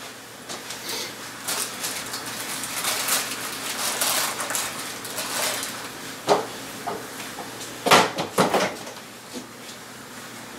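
Rustling movement, then a few sharp knocks and clinks about eight seconds in as a refrigerator door is opened and items in it are handled.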